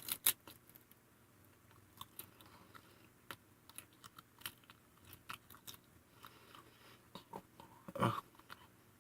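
Roasted seaweed snack sheets being bitten and chewed: a crisp crunch at the start, then scattered small crackles of chewing, with one louder, lower sound about eight seconds in.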